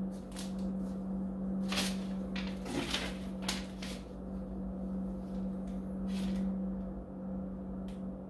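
Paper sheets and plastic packaging rustling and crinkling as they are handled in a cardboard box, in a handful of short rustles, over a steady low hum.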